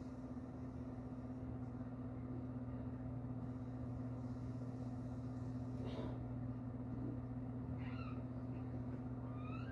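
A steady low hum, with a few faint squeaky tones that glide up and down about six and eight seconds in and again at the very end.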